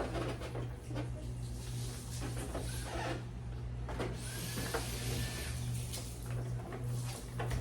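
Clicks and scrapes of hand work on a car's door trim, with one longer scrape about four seconds in, over a steady low hum.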